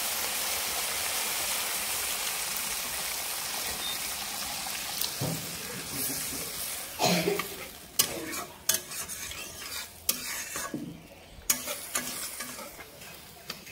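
Tomato and spice masala in hot mustard oil sizzling in the pan as water is poured in, the sizzle fading over the first five seconds. Then a spatula stirs and knocks against the pan several times.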